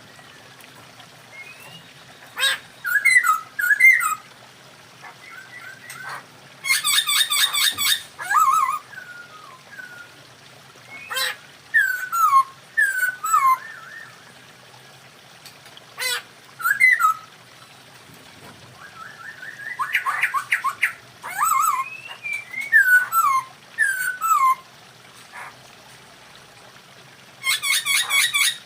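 Masked laughingthrushes (poksay hongkong) calling in bouts: short whistled notes that fall in pitch, mixed with rapid chattering bursts, with pauses between bouts.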